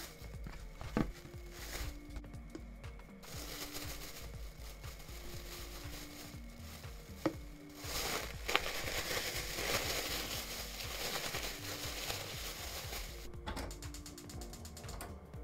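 A clear plastic bag rustling and crinkling as raw chicken wings are shaken and worked inside it, loudest in a stretch about eight seconds in, with a few sharp clicks. Soft background music plays underneath.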